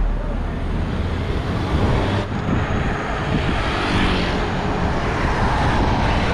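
Wind rushing over the microphone of a camera riding along on a bicycle, mixed with road and tyre noise. Motor traffic passes close by, and the noise swells in the middle of the clip.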